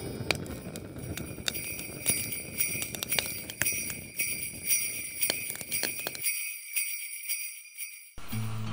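Sleigh bells jingling continuously, a dense shimmer of small metal bells. About six seconds in the lower background drops away and only the bells' high ringing remains; just before the end music with plucked notes begins.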